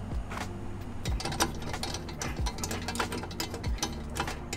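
Background music with a steady beat: a low thump about every second and a quarter over sustained low notes, with quick clicking percussion.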